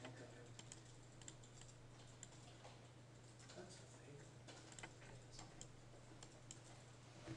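Faint, irregular clicking from a computer mouse and keyboard, several clicks a second, over a steady low electrical hum.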